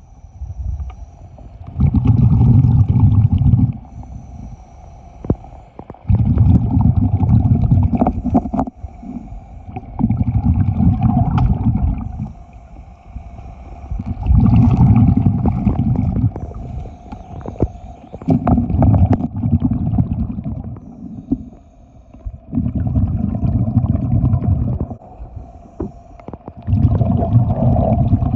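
A diver breathing through a hookah regulator underwater on a gold dredge. Each exhaled burst of bubbles rumbles for about two seconds, roughly every four seconds, over a steady mechanical hum.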